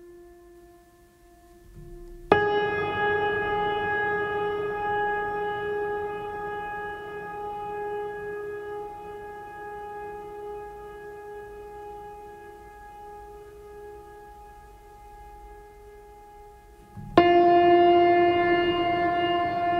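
Ambient drone music of long held tones. A loud new tone enters abruptly about two seconds in and slowly fades, and another, lower tone enters abruptly near the end.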